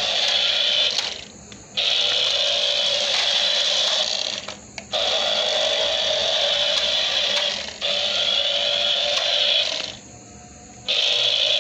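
Toy RC car's small electric motor and gears whining steadily as it drives, cutting out abruptly about four times as the throttle is let off and starting again each time.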